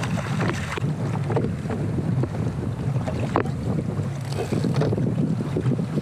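Wind buffeting the microphone on open ocean, a steady low rumble, with water splashing and slapping against the kayak and its outrigger floats and a few short sharp knocks.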